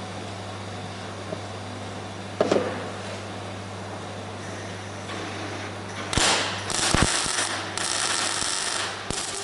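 Steady electrical hum with a single knock, then from about six seconds in a MIG welder crackling in several short bursts of stitch welding.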